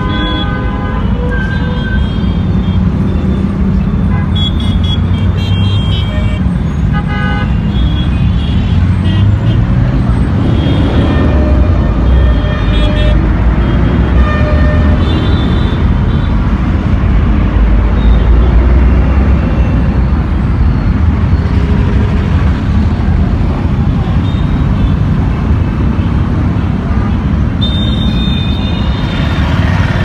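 Heavy mixed city traffic at a road junction: buses, auto-rickshaws, motor scooters and cars run past in a steady rumble, with short horn toots sounding several times, one near the end.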